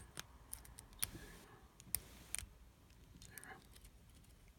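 Faint, irregular small clicks of a lock pick working the pins of a Yale 125/50 pin-tumbler padlock under light tension, probing for movement in the pins.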